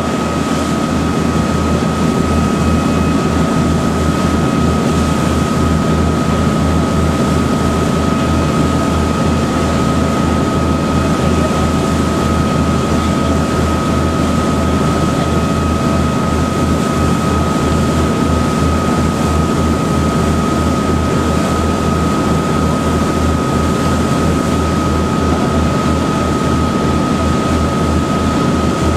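A boat's engine running steadily underway: a low, rapid throb with a steady high whine over it, under the hiss of water rushing past the hull.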